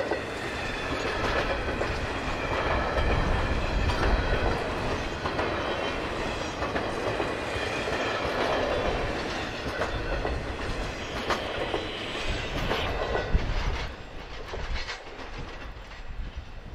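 Double-stack container freight cars rolling past, their steel wheels clicking rhythmically over rail joints. The sound falls away near the end as the last car passes and recedes.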